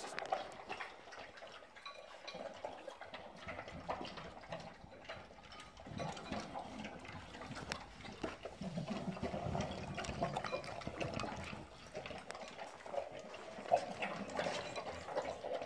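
Two English bulldogs eating their dinner from bowls: irregular chewing and licking with scattered sharp clicks.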